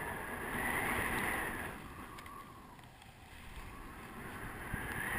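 Wind rushing over the microphone of a camera riding on a paraglider spinning through a SAT manoeuvre. It swells about a second in, dies down around the middle, and rises again near the end as the glider turns through the airflow.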